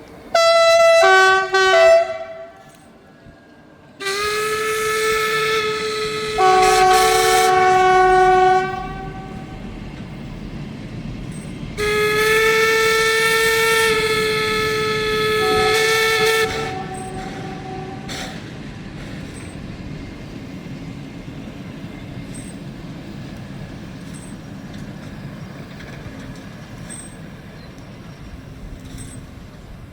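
A heritage train sounding its whistle: two short blasts, then two long blasts that each drop to a lower note partway through. Afterwards the train rolls by with a steady rumble and faint regular clicks from the wheels on the rails.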